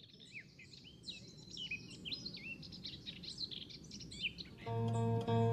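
Small birds chirping, a dense run of short, quick calls that rise and fall in pitch over faint background noise. Near the end, plucked-string music starts, much louder than the birds.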